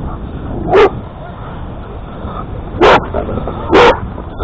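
A dog barking at close range: four loud, short barks, about a second in, then near three, four and at the very end.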